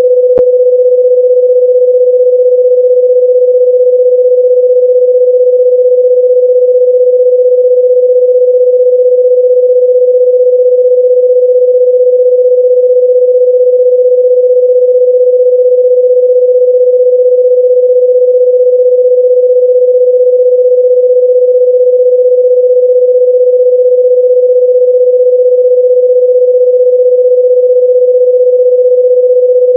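Loud, steady electronic pure tone at about 500 Hz, held at one pitch without a break.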